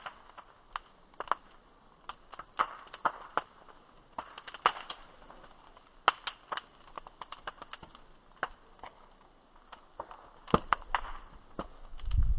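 Wood bonfire crackling: irregular sharp pops and snaps, some in quick clusters. A low rumble comes in near the end.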